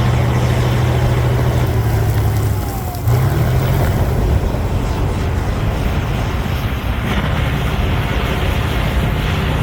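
Cat D9L bulldozer's V12 diesel engine running under load while pushing overburden, a steady low hum. About two and a half seconds in the engine dips briefly, then picks back up with a short rise in pitch.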